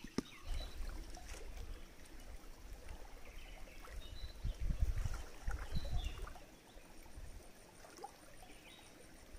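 Water trickling in a shallow stream, with a few low bumps about halfway through.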